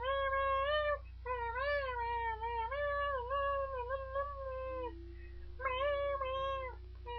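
A cat yowling in long, wavering drawn-out calls that break off briefly about a second in and about five seconds in, over a steady low hum.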